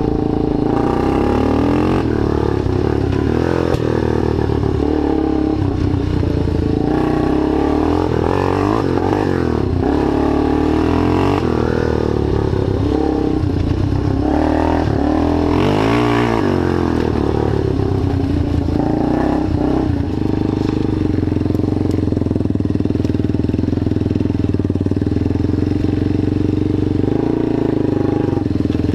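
Freshly rebuilt ATV's engine running under load while being ridden, its pitch rising and falling with the throttle.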